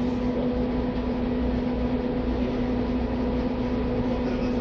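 Steady machine hum: a low rumble with a constant mid-pitched tone, running evenly without change.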